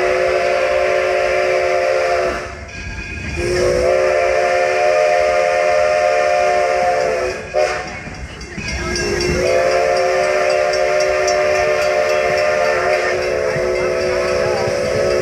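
Steam locomotive's chime whistle sounding several notes at once in the grade-crossing signal: long, long, short, long. A long blast ends about two seconds in, a second long blast follows, then a brief toot and a last long blast, over the steady running noise of the train.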